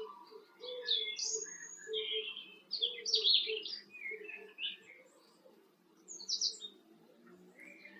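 Garden birds chirping and singing in short, busy high phrases, thickest in the first half with another quick burst near the end.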